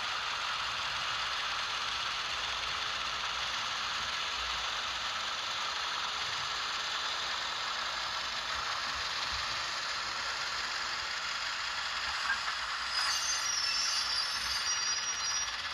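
Model locomotive sound decoder playing a 44-tonner's twin Caterpillar diesel engine sound through a small speaker, a steady rattling run. About 13 seconds in, high squealing tones of the decoder's brake sound join in.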